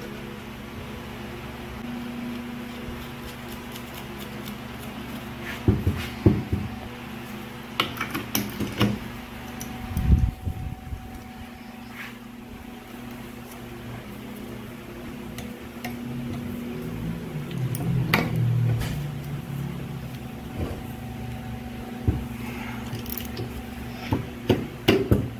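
Scattered metallic clicks and clanks of hand tools, a ratchet and a flywheel holder, working on the nut of a scooter engine's magneto flywheel, over a steady low hum.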